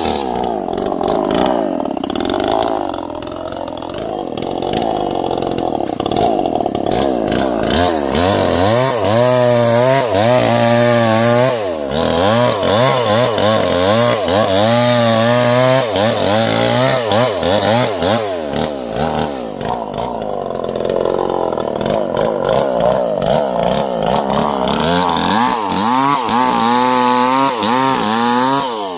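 Two-stroke chainsaw running and cutting through small sengon trees. Its engine pitch swings up and down quickly from about eight seconds in, settles for a stretch, then swings again near the end.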